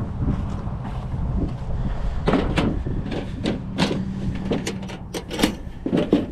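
Gear being rummaged through in a car, a quick run of sharp knocks, clicks and rattles starting about two seconds in, over a steady rumble of wind on the microphone.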